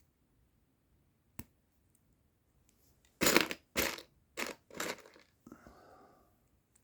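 Plastic Lego Technic pieces being handled and pushed together: a single click about a second in, then four loud scraping strokes about half a second apart, and a softer rustle after them.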